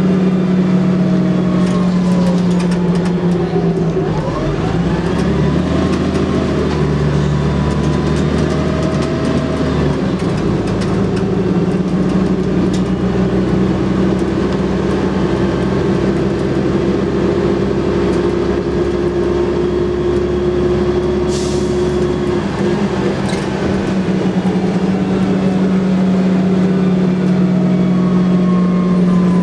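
Diesel bus engine driven hard, heard from inside the saloon: a loud, steady drone whose note glides and shifts several times as the bus changes speed. A short hiss comes about 21 seconds in, and another two seconds later.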